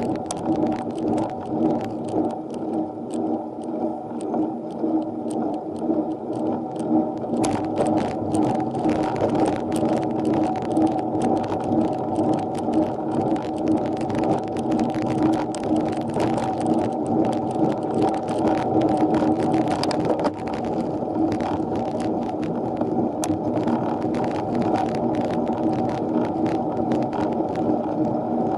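Riding noise from a mini velo bicycle climbing steadily, picked up by an action camera: a steady hum with frequent small clicks and rattles, the clicks growing busier about seven seconds in.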